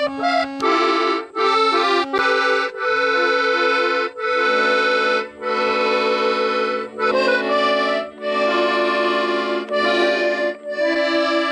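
Small piano accordion playing a folk melody: repeated short notes over a low note held underneath, the tune moving in phrases separated by brief breaks.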